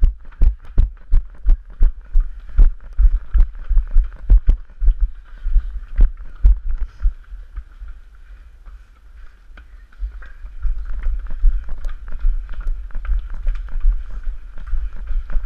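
A runner's footfalls on stone paving, thudding about three times a second as heard by a head-mounted action camera that picks up each stride as a heavy low thump. The thuds fade for a few seconds in the middle, then pick up again.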